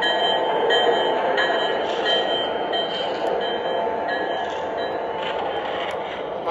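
O gauge model train, a Lionel Vision Line GG1 electric locomotive with passenger cars, rolling past on the track in a steady rumble of wheels that slowly grows quieter. Over the first few seconds a repeating ringing tone, on and off about every two-thirds of a second, sounds from the locomotive's sound system and then fades out.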